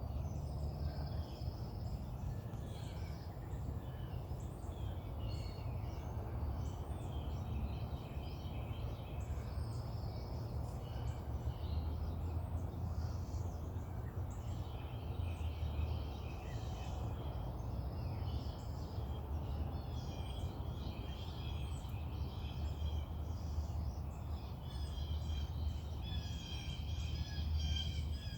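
Several birds singing and calling in the distance, short chirps and trills repeating throughout, over a steady low rumble.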